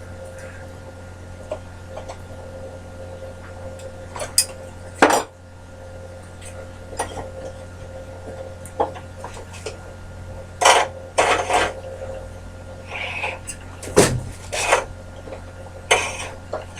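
Scattered metallic clinks and knocks from a bandsaw and hand tools being handled while a blade is fitted, over a steady low hum.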